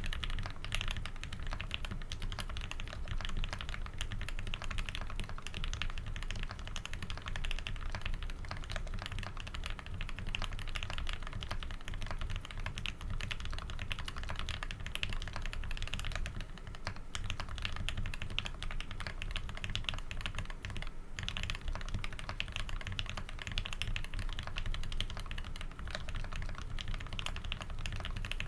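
Custom Tx60 v2 keyboard with a brass plate, lubed Tealios v2 linear switches in Cherry top housings and PBT keycaps, typed on in a fast, continuous run of keystroke clacks, with brief pauses near the middle.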